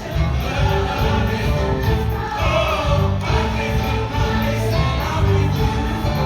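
Choir singing a pop-song medley in full voice over instrumental backing with a steady, heavy beat.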